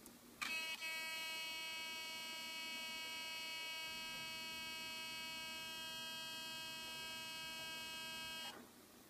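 Olympus OM-D E-M5 mirrorless camera giving off a steady, high-pitched electronic whine just after being switched on, for about eight seconds before cutting off abruptly. It is an abnormal noise that the owner takes for a product defect.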